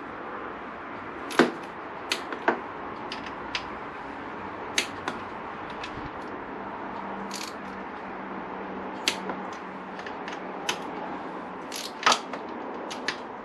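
Sharp, irregular metallic clicks from a click-type torque wrench and its socket and extension as valve cover bolts are tightened to 12 Nm, each click-off marking the set torque reached. The loudest clicks come about a second and a half in and again near the end.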